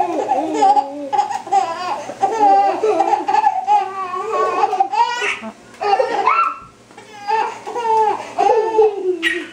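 A baby girl laughing hard in quick, high-pitched bursts of giggles, with short breaks between them.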